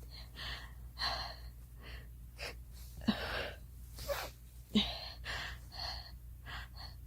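A girl's repeated short, gasping breaths, the hitching in-breaths of a sneeze coming on, with two sharper, louder catches about three and nearly five seconds in.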